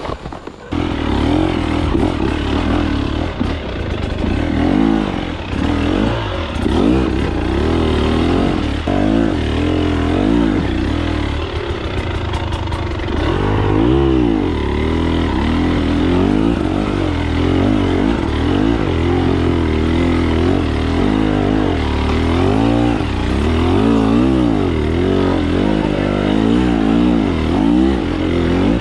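Two-stroke engine of a KTM 300 TBI enduro motorcycle being ridden off-road, revving up and falling back again and again as the throttle is worked.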